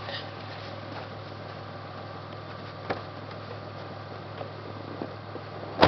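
Isuzu Bighorn 4x4 idling with a steady low hum, with a few light clicks and one sharp knock near the end as its door is shut.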